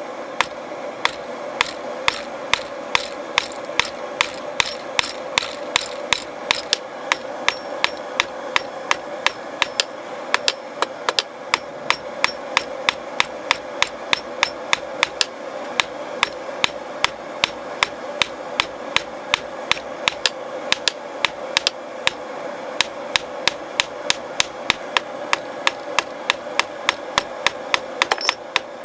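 Hand hammer striking metal on an anvil in a steady rhythm of about three ringing blows a second, pausing briefly twice. Under it runs the continuous rushing noise of the gas forge's burner.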